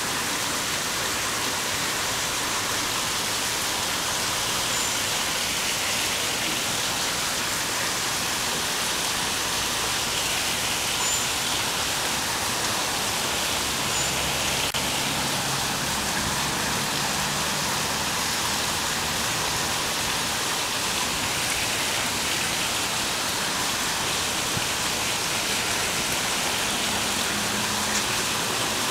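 Water flowing steadily over the black granite of a memorial fountain, a continuous even rush.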